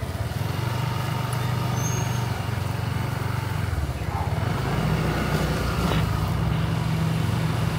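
A motor vehicle engine running close by: a steady low hum whose pitch shifts slightly about four seconds in.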